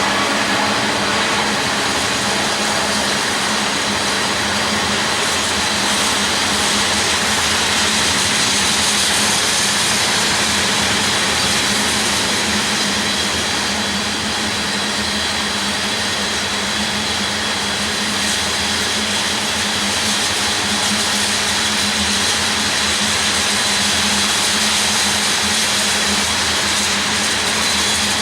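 Crude oil freight train rolling past, a loud, steady roar of wheels on rail with a constant low hum underneath.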